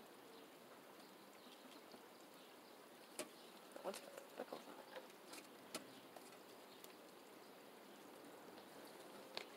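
Near silence, with a few faint short clicks and taps in the middle and one near the end, from hands handling eggs and nest material in a chicken coop.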